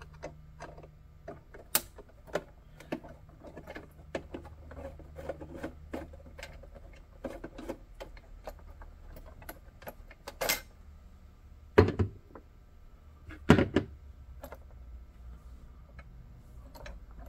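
Small irregular clicks and taps of screws being removed and a model passenger car's parts being handled, with a few louder knocks and thuds, the loudest about twelve and thirteen seconds in.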